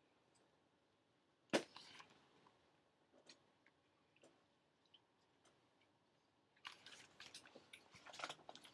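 Mostly near silence, broken by a sharp tap about a second and a half in and by faint crackling rustles near the end: handling noise from a picture book being held up to the camera and then lowered.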